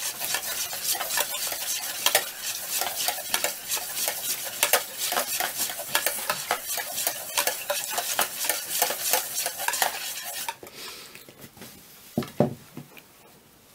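Balloon whisk beating eggs, water and oil in a mixing bowl: a fast, steady clatter of wire against the bowl that stops about ten seconds in. A couple of light knocks follow as the whisk is laid down in the bowl.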